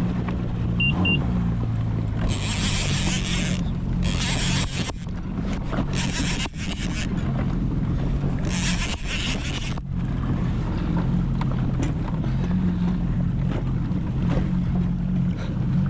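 Jet ski engine idling with a steady low hum. Several short bursts of hissing noise come over it in the first ten seconds.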